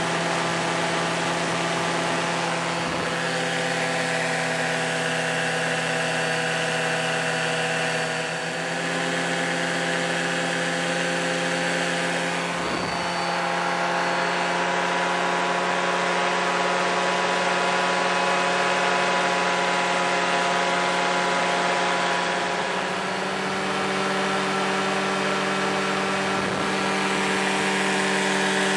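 Paramotor engine and propeller running steadily in flight, a continuous drone that steps up slightly in pitch late on, with air rushing past.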